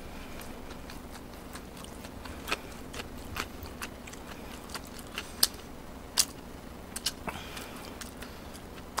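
A person chewing a mouthful of gimbap close to the microphone: scattered wet mouth clicks and smacks, the sharpest a little past the middle, over a low steady hum.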